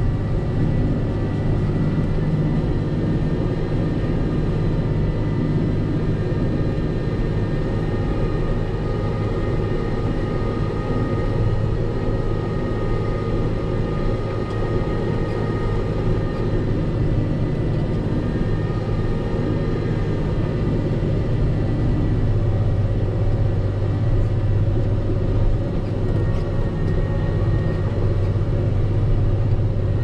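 Volvo L60H wheel loader's diesel engine running steadily under load while it pushes a V-plow through snow drifts, heard from inside the cab. There is a faint steady whine above the low engine drone.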